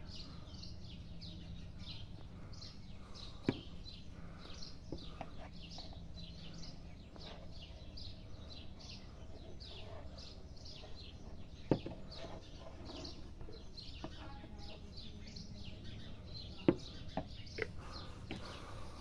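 Small birds chirping, a quick run of short, falling chirps repeating without a break, over a low background hum. A few sharp clicks stand out, the loudest near the end.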